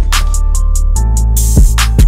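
Background music: a beat with deep kick drums that drop in pitch, a sustained bass and short hi-hat strokes.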